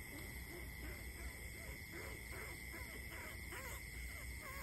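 Imitation rat squeaks made by mouth to lure field rats: a quick run of short rising and falling squeaks starting about a second and a half in. They sound over a steady high insect trill.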